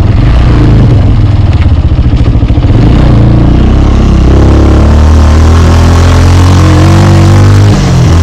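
Motorcycle engine running under way on a rough dirt track, loud and close, its pitch shifting as the throttle changes, with a brief drop in level near the end.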